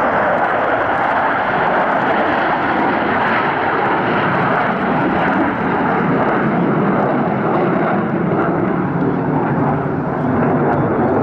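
Blue Angels Boeing F/A-18 Super Hornet jets flying past, a loud, steady jet-engine noise that deepens somewhat in the last few seconds.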